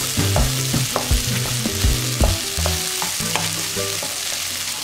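Long beans and prawns sizzling in a nonstick frying pan while a wooden spatula stirs them, with irregular knocks and scrapes of the spatula against the pan over a steady frying hiss.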